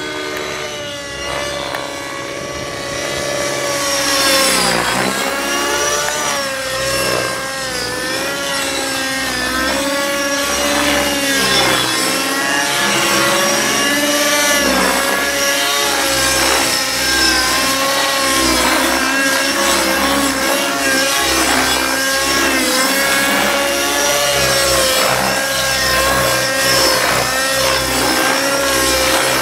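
Align T-Rex 600 Nitro RC helicopter in flight: its nitro glow engine and rotor running at flying speed. The pitch wavers throughout, with deeper dips about four and fifteen seconds in.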